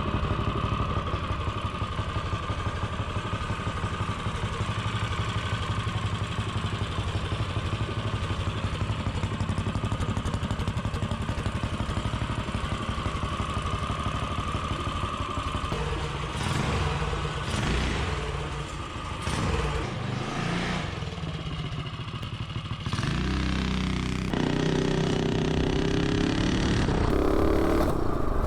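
Coleman CT200U-EX minibike's modified Predator 212 single-cylinder engine running steadily, with a stretch of uneven short noises past the middle. Near the end the engine revs up, its pitch rising as the bike accelerates through the torque converter.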